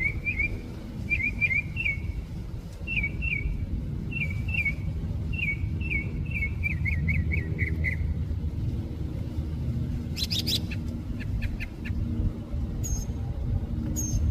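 Northern mockingbird singing: short chirped phrases, each repeated several times, ending in a quicker run about eight seconds in, then a few sharp clicks and thin high notes near the end. A steady low rumble runs underneath.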